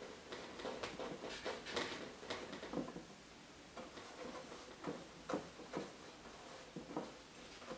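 Oil-paint brush dabbing and scrubbing on canvas, making faint, irregular scratchy strokes and soft taps. They come thickly in the first few seconds, then sparser.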